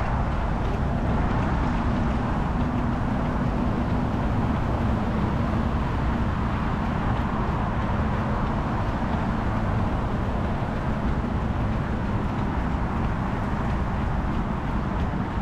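Wind rumbling and buffeting on a camera microphone carried at running pace, with runners' footfalls faintly audible as light ticks.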